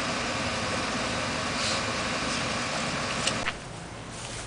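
Steady background hiss with a faint hum in it, at a moderate level. About three and a half seconds in there is a short click, and the hiss then drops to a quieter level.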